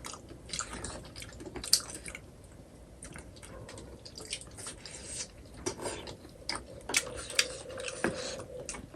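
People eating buffalo-leg soup: irregular small wet clicks, sips and chewing sounds.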